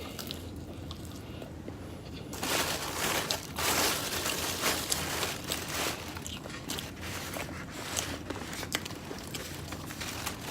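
Close-up eating sounds: biting and chewing food, starting after about two quiet seconds, with a noisier stretch and then scattered small clicks.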